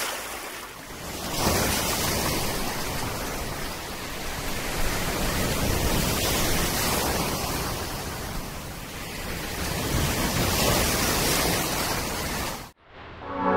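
Surf breaking and washing in the shallows: a steady rush of wave noise that swells and eases. It cuts off suddenly near the end, and music starts.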